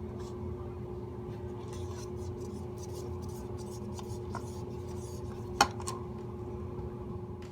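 Popsicle stick stirring and scraping thick slime against the sides of a cup, with scattered light clicks and one sharper tap about five and a half seconds in, over a steady low hum.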